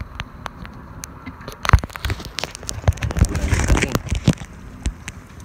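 Irregular clicks, scrapes and knocks in a plastic bucket holding live crabs, with one louder knock a bit under two seconds in and a busier stretch of clattering around three to four seconds in.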